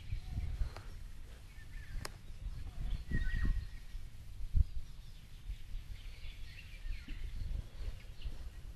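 Wind buffeting the microphone over water splashing around a kayak being paddled, with a few sharp clicks and short knocks.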